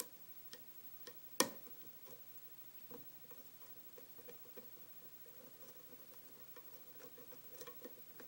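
Faint, scattered clicks and scrapes of a hook pick working the pin stacks of a Kwikset pin-tumbler lock under light tension, with one sharper click about a second and a half in.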